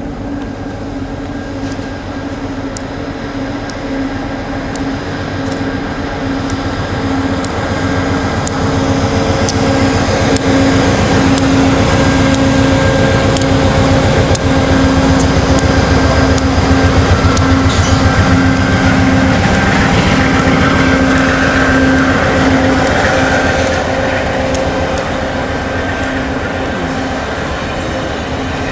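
Amtrak diesel locomotive passing at close range, its engine running with a steady hum. The sound builds to its loudest in the middle and eases off toward the end.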